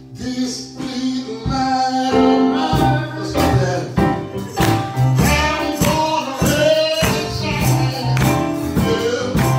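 Live gospel music starting abruptly: a man singing into a microphone over keyboard and drums, with percussion keeping a steady beat.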